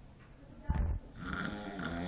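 A person snoring: a short low snort about two-thirds of a second in, then a long pitched snore starts just after a second in.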